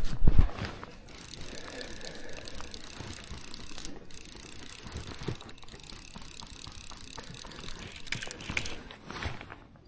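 Fishing reel being wound in, its ratchet clicking steadily, after a few handling knocks at the start.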